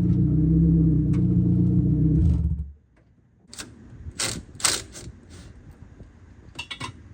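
A car engine running steadily that cuts off abruptly about three seconds in, followed by a few sharp light clinks and knocks.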